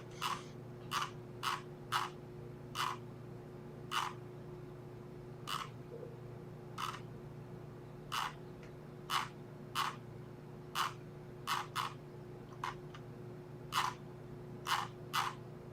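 Irregular clicking of a computer mouse, about one or two clicks a second, over a faint steady electrical hum.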